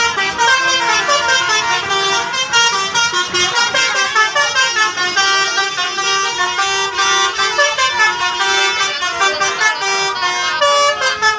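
Bus telolet horns, multi-tone horns playing a fast run of shifting musical notes, with several tones sounding together.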